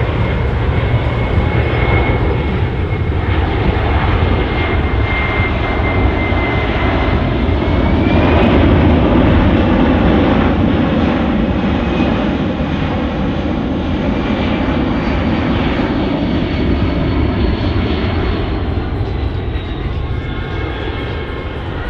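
Boeing C-17 Globemaster III's four Pratt & Whitney F117 turbofans on a slow, gear-down pass close overhead. Their whine climbs about seven seconds in as the throttles come up, and the engine noise peaks. The noise then eases and the whine falls in pitch as the jet banks away.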